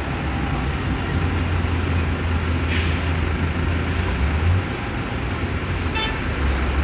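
Buses and cars idling in a traffic jam: a steady low diesel engine rumble, with a short air-brake hiss about three seconds in and a brief beep about six seconds in.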